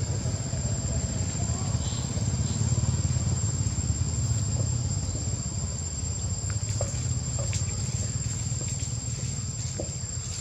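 Outdoor forest ambience: a constant high-pitched insect drone over a steady low rumble, with a few faint clicks.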